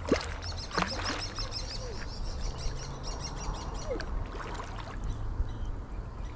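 A hooked carp splashes at the water's surface right at the start, then a bird twitters in a quick run of high chirps for about three seconds, over a steady low rumble.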